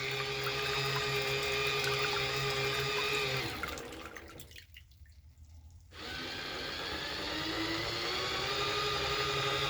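Small portable washing machine running a wash with a sponge filter in the drum: the agitator motor hums steadily with water churning, stops about three and a half seconds in, and starts up again about two seconds later.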